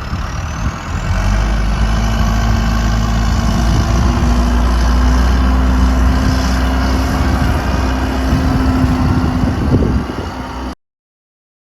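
John Deere 310SJ loader backhoe's four-cylinder diesel engine running, getting louder about a second in and then holding steady with a deep rumble and a steady hum. The sound cuts off abruptly near the end.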